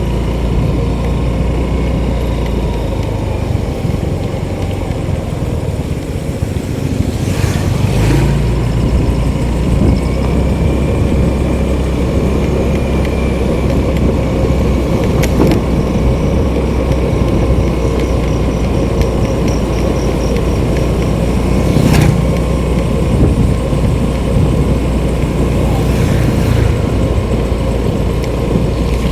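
Steady engine and road noise from a moving vehicle, heard from on board, with a few brief knocks along the way.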